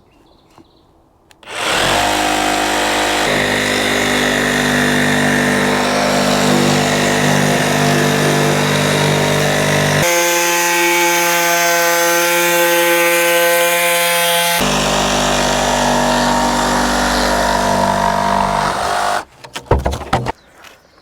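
Makita DJV182 cordless jigsaw, run along a guide rail, cutting through silver foil-backed insulation board. It starts about two seconds in with a steady motor whine and the blade running. For a few seconds in the middle the low hum drops out and the tone goes higher. It stops abruptly near the end, followed by a few knocks.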